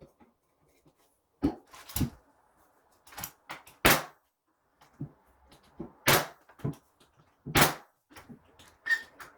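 Irregular sharp knocks and bangs from renovation work: about five loud ones among lighter taps and clatter.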